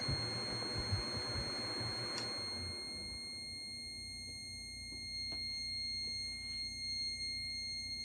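A fire alarm panel's buzzer sounds a steady high-pitched tone as the smoke detector goes into alarm. About two seconds in there is a click from the fan-shutdown relay, after which the desk fan's whir winds down and stops as its power is cut.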